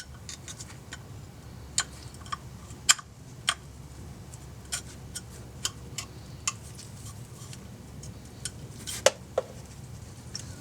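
Light, irregular metallic clicks and clinks of small metal parts and tools being handled, as the oil drain plug's old gasket is swapped for a new one. The clicks come one or two a second, with a louder pair near the end, over a steady low hum.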